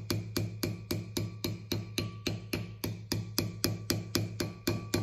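Light, rapid hammer taps, about four a second, driving a wheel-bearing grease seal into the hub of a drilled and slotted brake rotor. The cast rotor rings under the taps.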